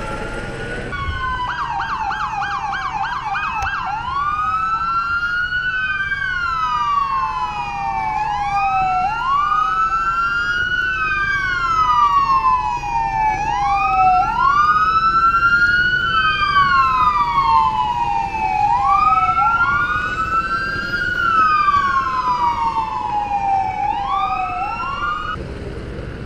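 Several police patrol car sirens sounding together: about a second in, a fast yelp for a couple of seconds, then a slow wail whose pitch rises quickly and falls slowly about every two and a half seconds, the sirens overlapping slightly out of step. The sirens cut off near the end.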